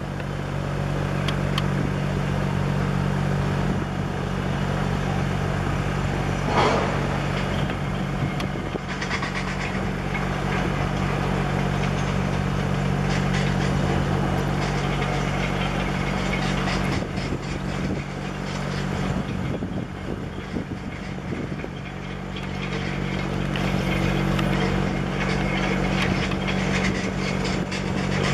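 Steady low engine drone under a haze of outdoor noise, with a brief knock about six seconds in.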